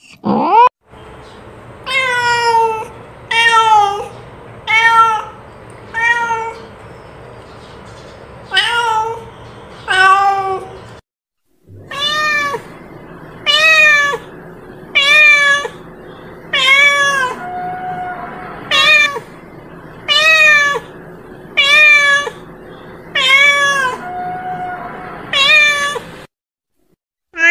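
Domestic cat meowing over and over: a long series of short meows, each rising and falling in pitch, about one every second and a half, with a brief break about eleven seconds in.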